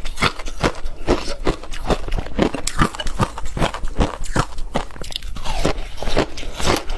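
Packed shaved ice soaked in passion fruit juice being bitten and chewed: a rapid run of crisp crunches, a few every second.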